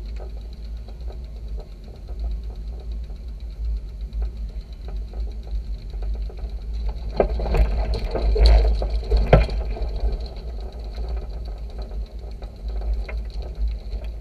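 Electric mobility scooter towing a trimaran on its trolley up a slipway: a steady high motor whine over a low rolling rumble and small rattles, with louder clattering between about seven and nine and a half seconds in.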